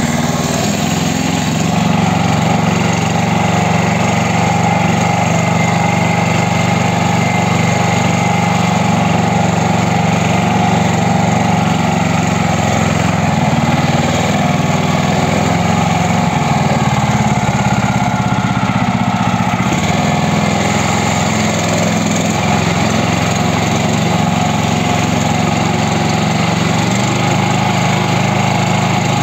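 Homemade articulated four-wheel-drive mini tractor's engine running steadily as the tractor drives across snow, its pitch shifting slightly about two-thirds of the way through and again near the end.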